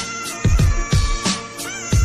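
Background music with a steady beat: deep kick drums, crisp high percussion and a held lead melody that slides between notes.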